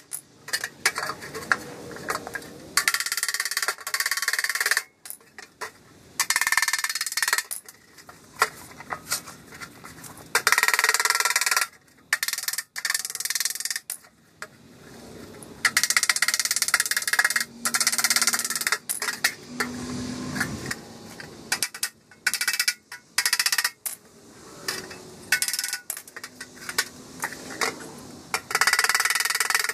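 Hammer tapping the welded sheet-steel hood panel of a 1959 Bolens garden tractor against a steel block beneath it, dressing the weld flat. The taps come in quick flurries of a second or two with short pauses between, the thin steel ringing.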